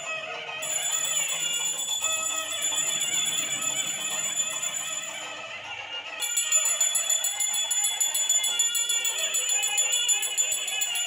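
Puja hand bell ringing steadily over chanting voices. From about six seconds in it is rung faster and louder, in a rapid run of strikes.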